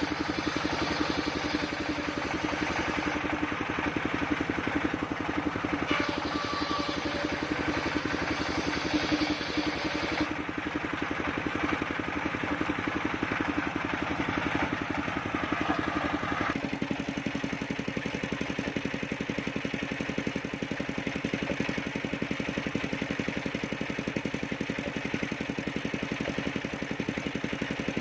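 Engine of a mobile circular sawmill running steadily with a fast even pulse. A brighter, noisier layer over the engine drops away suddenly about two-thirds of the way through, leaving the engine running on alone.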